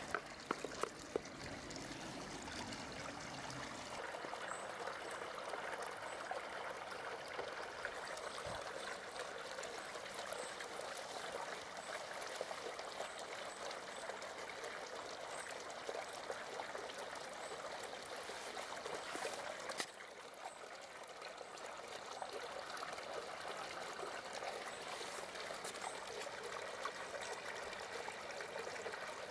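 Water trickling and running steadily, with a few small clicks near the start and a brief drop in level about twenty seconds in.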